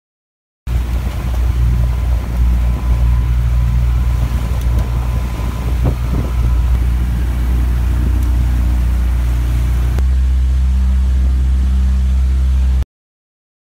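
Motorboat engine running under way, a steady low hum, with wind buffeting the microphone in gusts. About ten seconds in the wind noise drops away and only the engine hum remains.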